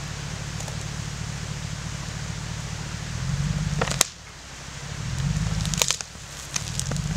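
Hummer H2's V8 engine running low and pulling against a tow strap, surging twice and easing off abruptly each time as it drags a fallen snow-laden tree. Sharp cracks of branches come at the end of each surge.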